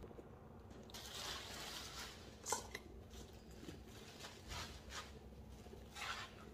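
Faint rustling of a plastic bag and hands scraping and scooping potting soil out of a plastic planter box, with a sharper click about two and a half seconds in.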